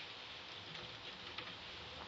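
Typhoon rain falling steadily, with a few drops ticking sharply about a second in.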